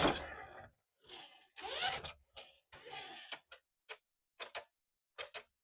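Handling noises: a couple of seconds of rustling, then a string of short, sharp clicks, several in quick pairs, like plastic parts of a toy being handled or snapped.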